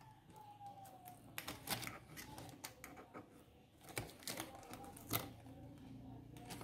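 Faint, irregular clicks and taps from hands working at the sheet-metal back and plastic frame of an LCD TV panel, freeing the driver board along its edge.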